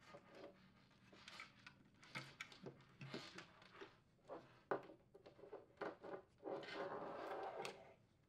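Hands handling a plastic refrigerator evaporator fan motor housing and its wiring: faint taps and clicks of plastic and wire, one sharper click a little past the middle, then about a second and a half of rubbing against the plastic near the end.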